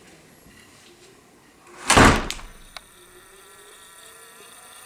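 A single loud thump about two seconds in, lasting under half a second, followed by a sharp click. A faint steady whine runs underneath.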